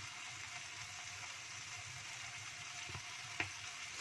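Stingray and green chili stir-fry sizzling with a steady hiss in a wok. Near the end come two short knocks, the second sharper.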